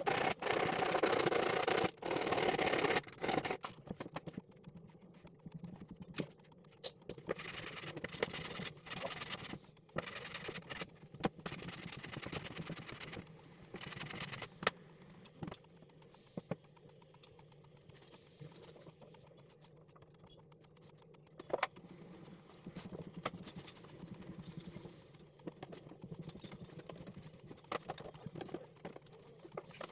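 Scraping and rustling of a large panel being handled against a stainless-steel kitchen-trolley frame for the first few seconds, then scattered knocks and clicks as the panel is set in place, over a low steady hum.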